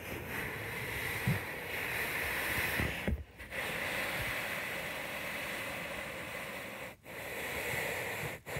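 Rushing handling noise from a handheld phone being carried and moved, cutting out briefly about three seconds in and again about seven seconds in, with a couple of faint low thumps.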